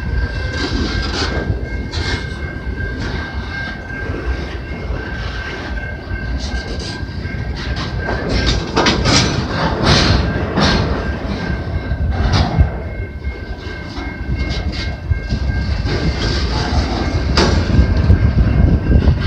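CN freight train rolling along the rails, its wheels clicking over the rail joints, with a thin steady high-pitched tone throughout.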